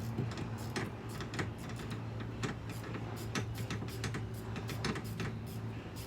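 Irregular clicking and clinking of hand tools at work under the hood, a few sharp clicks a second, over a steady low hum.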